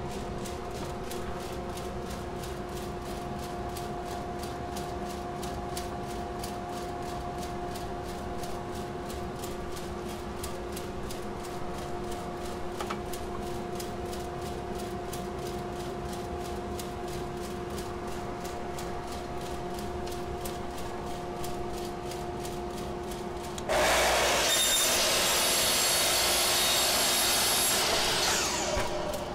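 Dust collector running with a steady two-note hum. Near the end a Makita miter saw starts suddenly, much louder, and runs for about five seconds as it cuts a thin strip of plywood, then winds down.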